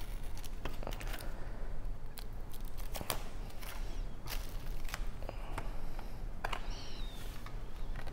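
Plastic shrink wrap crinkling and snapping as it is stripped off a cardboard CD digipak, in a string of short sharp crackles and rustles; near the end the card digipak is opened.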